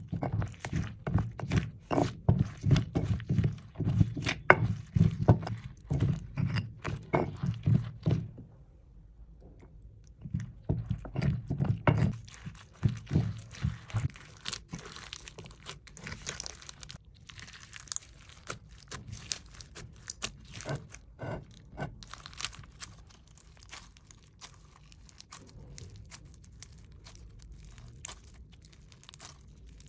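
Slime being squeezed and poked by hand: a quick run of wet pops and clicks over soft thuds, pausing about eight seconds in, then picking up again and thinning to lighter crackling clicks.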